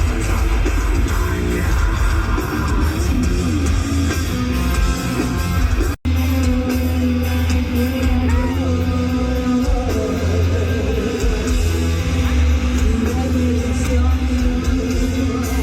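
Live heavy metal concert music: loud amplified guitars, drums and a singing voice heard from the crowd. About six seconds in the sound cuts out for an instant and a different stretch of the live music takes over.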